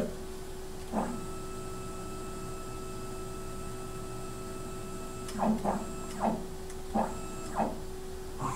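Denford MicroMill 2000 CNC mill's stepper motors jogging the table: a whine sweeps up at the start of a move about a second in and holds steady for about four seconds. Near the end come five short jogs in quick succession, each a brief rising-and-falling whine and louder than the long move, over a steady machine hum.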